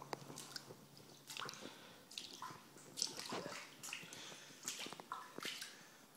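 Shallow water on a flooded floor splashing and dripping in short, irregular bursts.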